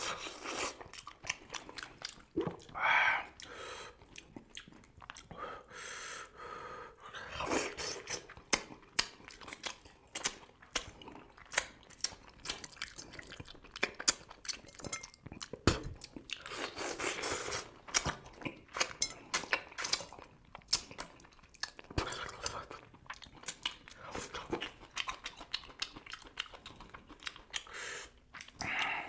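A person eating crucian carp close to the microphone: chewing and crunching with many quick mouth clicks and smacks, and a few longer sucking or slurping noises.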